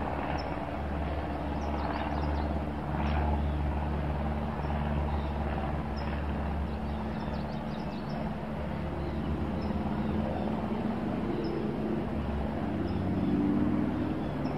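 A steady low engine-like hum with several held tones, swelling a little near the end, with faint bird chirps now and then above it.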